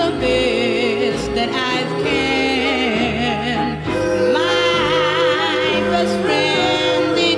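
Gospel vocal group singing in close harmony, held notes with wide vibrato over a soft bass accompaniment, from a 1958 78 rpm record.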